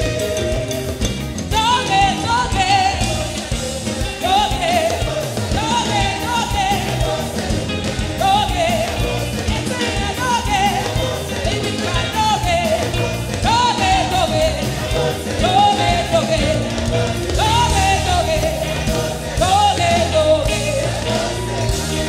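Upbeat African praise song performed live by a choir and worship singers with band accompaniment. The sung melody comes in short repeated phrases about every two seconds over a steady bass line.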